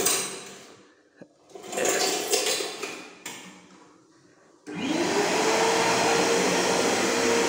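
Multipro vacuum cleaner: after two short fading rushes of air and a click, its motor switches on about two-thirds of the way through, spinning up with a rising whine that settles into a steady high whine over loud rushing air.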